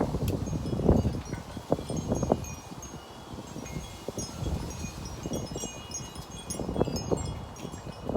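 Gusty wind buffeting the microphone in rumbling surges, with scattered high tinkling notes of wind chimes.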